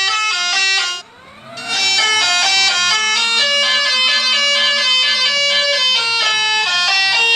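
Telolet basuri musical horn playing a melody in held notes that step up and down, with a reedy tone. It breaks off about a second in and starts again with a rising slide into the next phrase.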